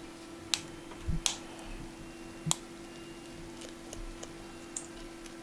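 Small repair tools clicking and tapping against the iPhone's small metal parts and screws: a handful of sharp, separate clicks, with a close pair just after a second in, over a faint steady hum.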